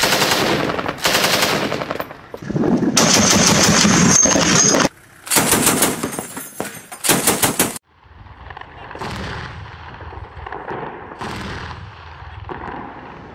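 Mounted machine guns firing long, rapid bursts, several bursts with short gaps between them. After about eight seconds it drops suddenly to quieter, more distant gunfire with a few separate shots.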